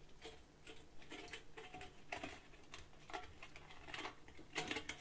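Stainless steel dog bowl being handled and turned in the hands, giving faint, irregular light clicks and taps of fingers on metal.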